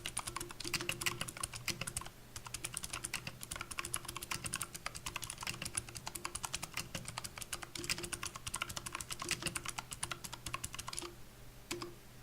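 Royal Kludge RK61 60% mechanical keyboard with clicky blue switches and O-ring dampeners under the keycaps, typed on quickly: a dense stream of sharp key clicks. The typing stops about eleven seconds in, with one last keystroke near the end.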